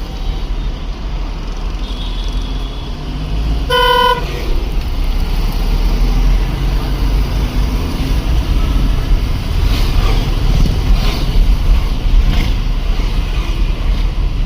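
Street traffic heard on the move, with a steady low rumble. One short vehicle horn honk sounds about four seconds in.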